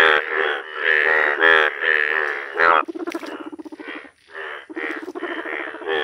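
Indian bullfrogs calling: a run of loud, repeated croaks about two a second, then a lower, fast rattling call. It breaks off briefly about four seconds in before the croaking starts again.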